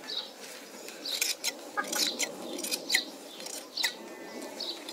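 Hand blade shears snipping through a sheep's fleece: a string of sharp metallic snips, a couple a second at uneven intervals, over the soft rustle of wool being handled.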